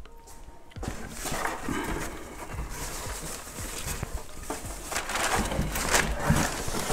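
Handling noise from the Honda ADV 150 scooter's plastic windscreen being fitted: irregular rubbing and scraping of plastic with several sharp knocks, starting about a second in.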